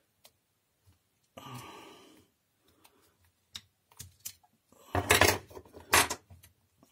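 Handling of a disassembled corded drill's plastic trigger-switch assembly and tools on a wooden workbench: scattered light clicks and rubs, a soft rustle about a second and a half in, and two louder clatters of hard objects about five and six seconds in.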